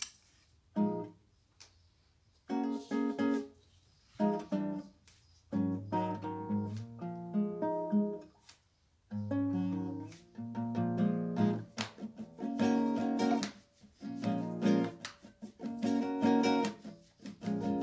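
Background music: acoustic guitar picking. It plays in short phrases with pauses at first, and from about a third of the way in it turns fuller and steadier, with low bass notes.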